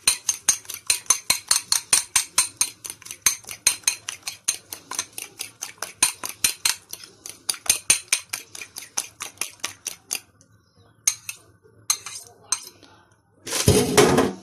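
A metal utensil beating an egg with nigella seeds in a glass bowl, clinking against the glass about five times a second. The clinks stop about ten seconds in, a few more follow, and a brief loud rustle comes near the end.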